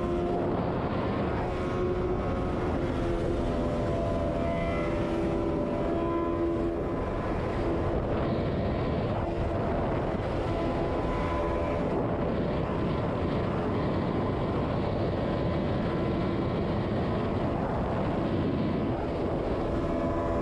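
Yamaha sport motorcycle's engine running steadily at highway cruising speed, about 130 km/h, with heavy wind rush over the microphone.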